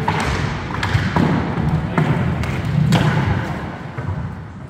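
Inline skate wheels rolling on a wooden hall floor, with several sharp knocks of hockey sticks striking the ball and floor during play.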